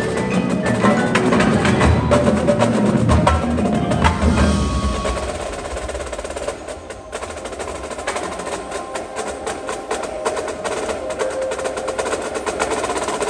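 Indoor percussion ensemble playing: marching snare, tenor and bass drums with a front ensemble of marimbas and other mallet keyboards. It is loud with a heavy low end for about the first five seconds, then drops to a quieter passage of rapid stick strokes and ringing mallet notes.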